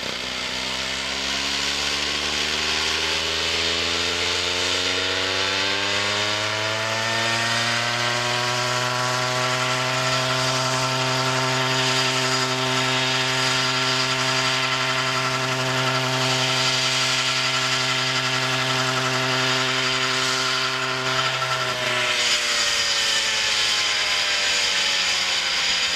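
The 100 cc engine of a homemade coaxial RC helicopter running with both rotors turning. Its pitch climbs over the first several seconds and then holds steady. About 22 seconds in it drops back as the engine slows.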